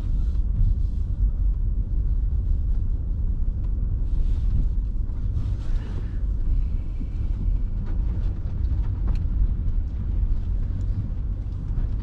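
Honda Ridgeline pickup driving over muddy ground: a steady low rumble of engine and tyres, with scattered light knocks and a couple of brief hisses around the middle.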